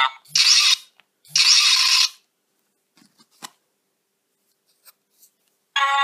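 Two short hissing sound effects from a Plarail Alpha System 683 series Thunderbird toy train's built-in speaker, about a second apart, followed by a few faint clicks; a played-back melody starts at the very end.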